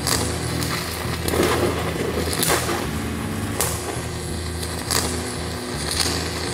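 Stick welding arc from a giant 3/4-inch Comet F25 electrode running at about 1000 amps DC: a steady crackling sizzle over a low steady hum, with a sharp pop about once a second.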